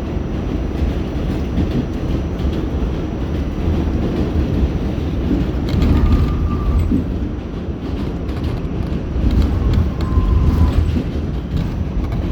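New York City subway train running, a steady rumble and rattle of wheels on the track heard from on board, with two brief faint squeals midway and near the end.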